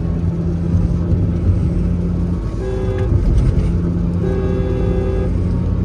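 Tata Altroz car horn sounded twice, a short toot about two and a half seconds in and a longer blast of about a second a little later, each sounding two pitches at once. Under both runs the steady low drone of the car moving on the road.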